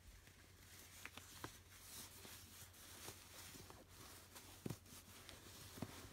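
Faint rustling of cloth as leggings are pulled up over a reborn doll on a bedspread, with a few soft clicks and taps from the handling.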